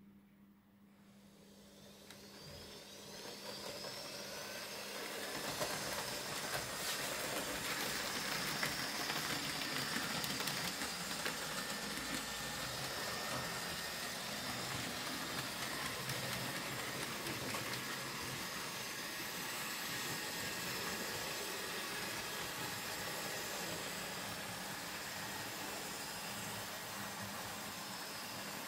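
Model railway steam locomotive and its coaches running on the track: the steady whir of the small electric motor and the rumble and clicking of wheels over the rails. It grows louder over the first few seconds as the train pulls away, with a rising whine as the motor speeds up, then runs on steadily.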